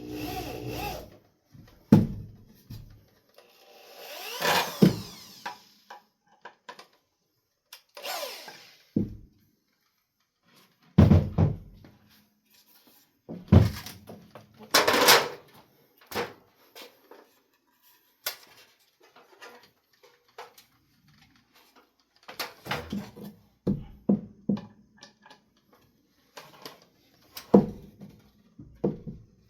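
Irregular knocks and clunks of wood and tools being handled, with a few short runs of a cordless drill driving screws into the shelf's support arm.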